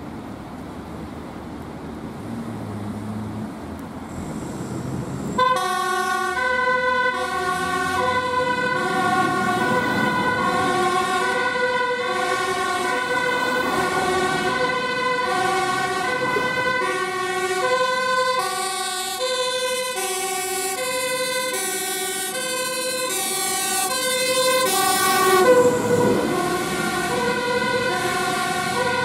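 DAF LF fire engine's diesel engine pulling away, then about five seconds in its two-tone siren switches on, alternating steadily between a high and a low note about twice a second. The siren is loudest near the end, as the truck passes closest.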